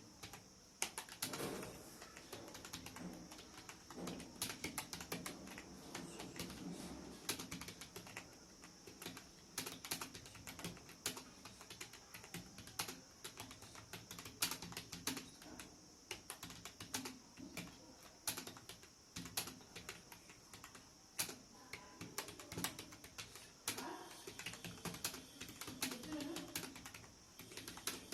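Computer keyboard being typed on fast and without pause: a dense, irregular stream of key clicks with occasional louder strokes.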